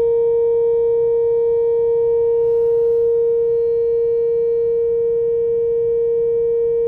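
Whelen WPS-4004 electronic outdoor warning siren sounding a steady alert tone, a single loud, unwavering pitch held throughout.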